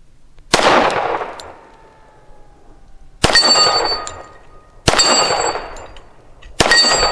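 Four shots from a Thompson Auto-Ordnance 1911 .45 ACP pistol, spaced one to three seconds apart, each echoing off briefly. The last three are followed by the ringing clang of steel plate targets being hit.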